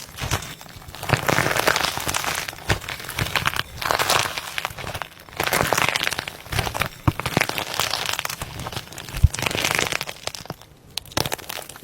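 Slime being squeezed and pressed by hand, crackling and popping in repeated bursts a second or two long, with scattered sharper pops.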